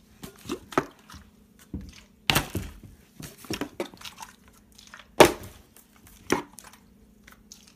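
Partly water-filled plastic soda bottle being flipped and knocking onto a small wooden table and the floor: two loud knocks about three seconds apart, with lighter knocks and clatter between them.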